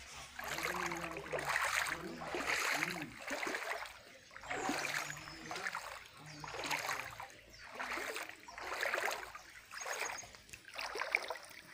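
Floodwater sloshing and splashing in regular surges, about one every two seconds.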